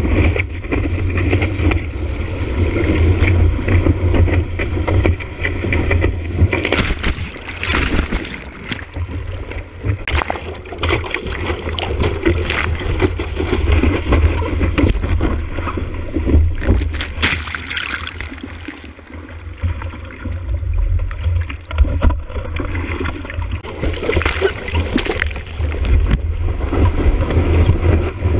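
Whitewater rushing and splashing over a surfboard-mounted camera as the board rides and is paddled through the surf, with a heavy low rumble of water and wind buffeting the microphone. Sharp, irregular splashes break through the steady wash.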